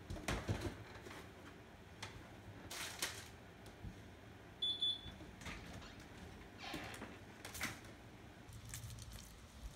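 Faint household handling sounds: a bowl and box set down on a folding tray table with a few knocks and rustles, a short high electronic beep about five seconds in, then the front door being opened.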